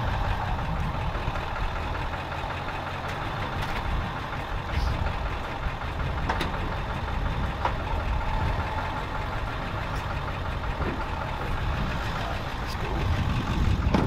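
2020 Ford F-250 pickup's engine idling steadily.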